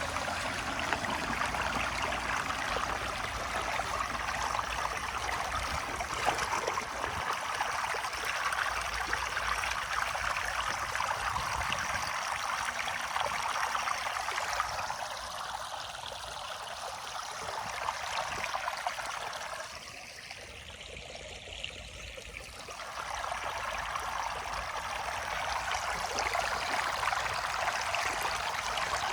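Floodwater rushing steadily down a cleared drain, with a briefer quieter stretch about two-thirds of the way through.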